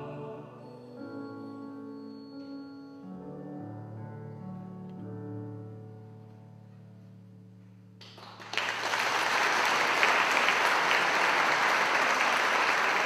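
Soft instrumental closing chords of a hymn, held notes changing every second or two and fading away. About eight seconds in, the audience breaks into loud applause that keeps going.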